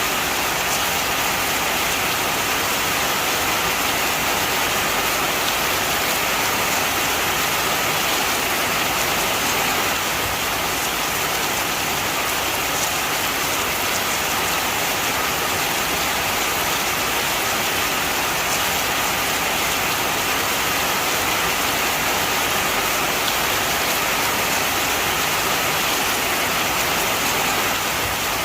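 Heavy rain falling steadily, a dense even hiss with faint individual drops.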